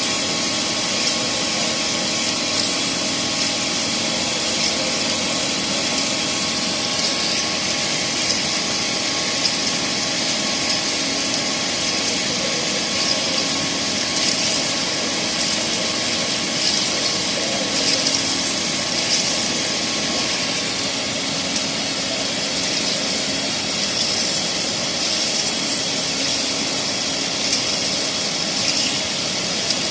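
Fermat WFC 10 CNC horizontal boring mill running a boring cut: a steady machine hum with several held tones, over a continuous hiss and scratchy cutting noise.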